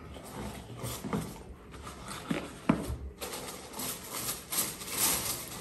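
Parcel packaging rustling and crinkling as it is opened and unpacked, with a few light handling knocks.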